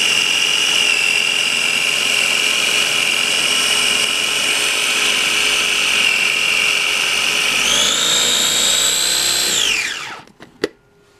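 Small electric food processor churning heavy whipping cream into butter, its motor running with a steady high whine. About three quarters of the way through the whine rises in pitch, then the motor winds down and stops, followed by a few clicks.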